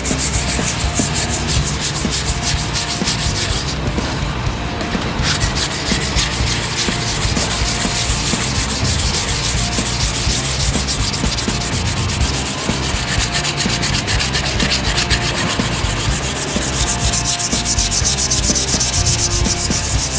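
Sandpaper rubbed by hand over glazing and spot putty on a truck's fender lip, in quick back-and-forth strokes, with a short break about four seconds in.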